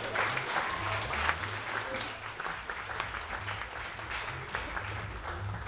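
Audience applauding: many hands clapping at once, easing off slightly toward the end.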